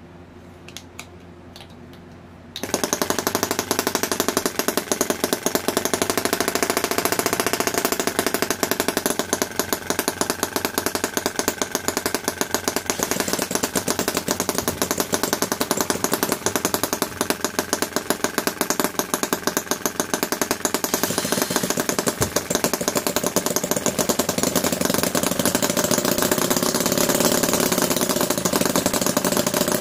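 Miniature brass horizontal model engine being started by hand-spinning its flywheel. A few light clicks, then about two and a half seconds in it catches and runs loudly at a fast, even firing rate. Its tone shifts slightly near the end.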